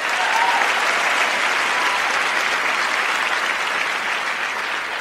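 A large audience applauding, a steady dense clapping that eases off slightly toward the end.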